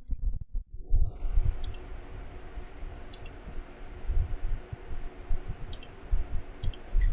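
Scattered sharp clicks, several in quick pairs, over frequent low bumps and a steady hiss.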